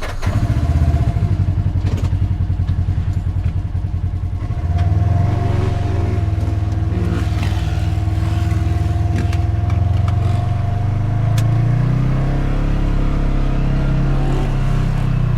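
Side-by-side UTV engine pulling away and running along a dirt trail. It pulses quickly at low revs at first, then the engine note rises and holds steady about five seconds in, climbing a little again near the end.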